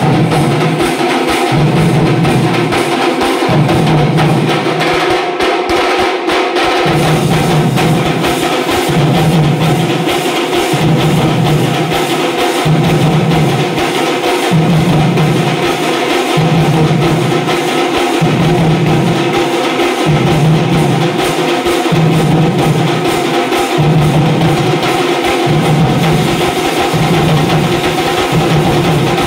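Live folk drumming from a troupe playing large barrel drums with sticks: a loud, fast, driving rhythm with a deep beat pulsing in a regular pattern.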